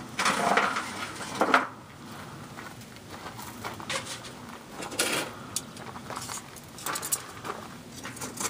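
Charcoal briquettes tipped out of a chimney starter into a fire pan, clattering for about the first second and a half. After that, scattered light clinks and knocks as the coals are picked over.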